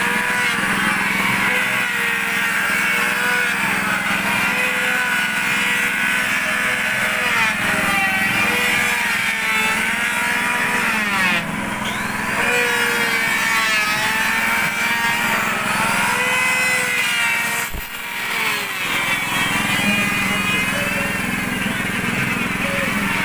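Handheld electric power planer running and shaving the face of a wide teak slab. Its whine dips in pitch as the blades bite and recovers between strokes, with a brief letup about three-quarters of the way through.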